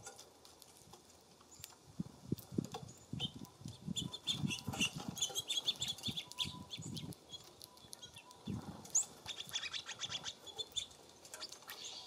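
Small songbirds at a seed feeder: a busy run of short high chirps and calls from about two seconds in until near the end, mixed with soft low flutters and thumps.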